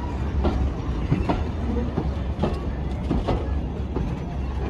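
Maroon passenger coaches rolling slowly past along a platform, their wheels clicking over rail joints a few times above a steady low rumble.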